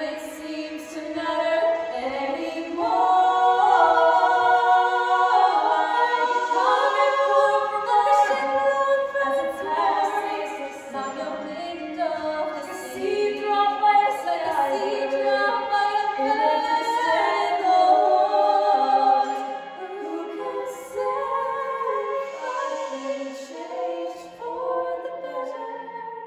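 Two girls singing a song unaccompanied, in two-part harmony, moving through long held notes.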